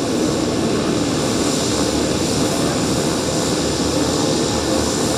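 Twin Pratt & Whitney PT6A turboprop engines of a Beechcraft 1900 running as it taxis: a steady engine drone with a thin, high whine over it.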